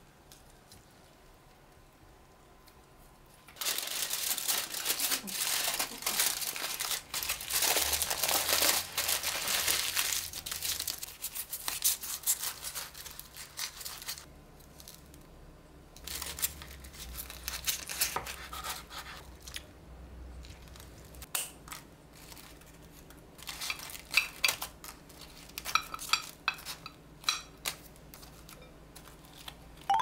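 Aluminium foil crinkling and rustling for about ten seconds as it is wrapped around burgers. A knife then cuts through the foil-wrapped burgers, followed by scattered crinkles and small taps near the end.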